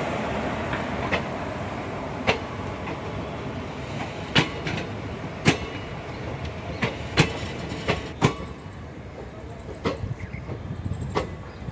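Indian Railways passenger coaches rolling past on the track, a steady rumble with sharp wheel clicks every second or so. The sound fades as the last coach goes by and moves away.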